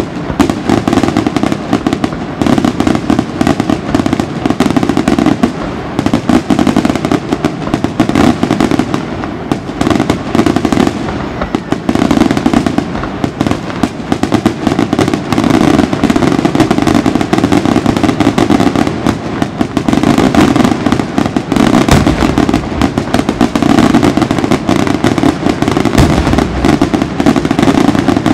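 Aerial fireworks in a continuous barrage: a dense, unbroken run of rapid bangs from shell bursts, mixed with crackling.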